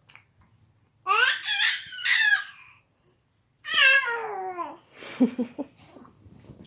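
A baby squealing in high-pitched shrieks: a quick run of about three squeals a second in, then one long squeal that falls in pitch near the middle, followed by softer babbling.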